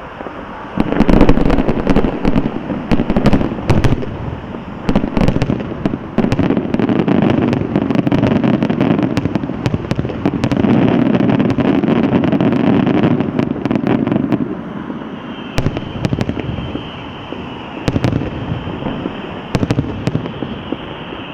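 Aerial fireworks going off in a rapid barrage: many sharp bangs and crackles over a dense rumble, heaviest through the first two-thirds and thinning toward the end.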